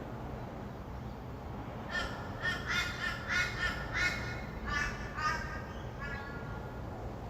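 A bird giving a quick run of about seven loud calls starting about two seconds in, then one weaker call near the end, over a steady low hum of distant traffic.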